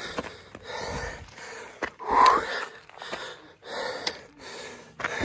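A hiker breathing hard while climbing a steep dirt trail, a heavy breath in or out about every three-quarters of a second, with the loudest, voiced gasp about two seconds in. Footsteps scuff on the dirt between the breaths.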